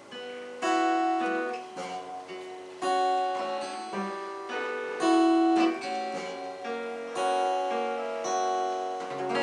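Acoustic guitar playing a song's instrumental introduction. A strong chord is struck about every two seconds, with picked notes ringing between.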